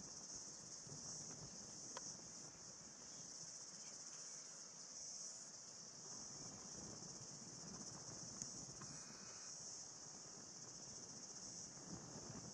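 Faint, steady high-pitched insect chorus, with a low background rumble beneath it.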